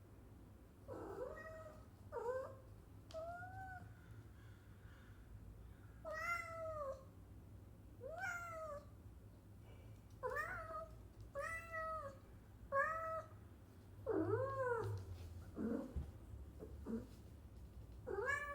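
A cat meowing over and over, about ten short rising-and-falling meows, each under a second, one to two seconds apart.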